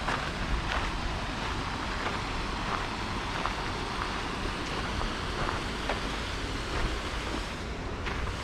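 Steady rushing outdoor noise, with wind buffeting the microphone, and faint footfalls of someone walking a path.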